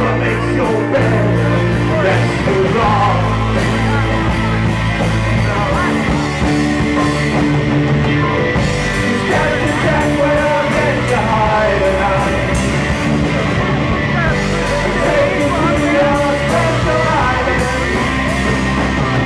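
Rock band playing live and loud, with a steady drumbeat under amplified instruments and a singer's voice.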